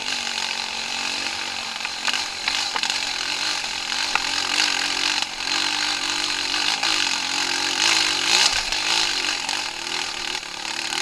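An off-road vehicle's engine running under load, its pitch rising and falling unevenly with the throttle, over a steady harsh hiss.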